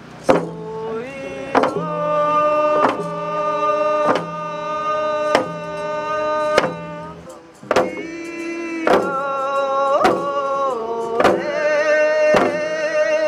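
Indigenous prayer song: a voice singing long held notes over a steady drumbeat, one stroke about every second and a quarter.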